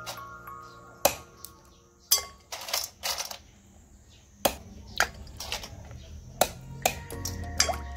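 A knife chopping the pointed tips off snail shells on a wooden chopping block: about ten sharp chops at an uneven pace, a little clustered around the third second.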